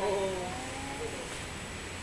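Large Japanese bronze temple bell (bonshō) ringing on after a strike, a low wavering hum, with a brief falling voice-like sound in the first half second.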